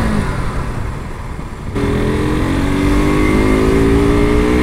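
KTM RC 200's single-cylinder engine accelerating, its pitch climbing slowly. Its note falls away just after the start, leaving a lull of about a second and a half, then comes back suddenly and rises again.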